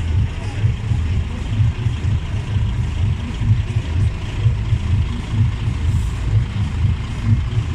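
Heavy truck's diesel engine running with a steady, uneven low rumble.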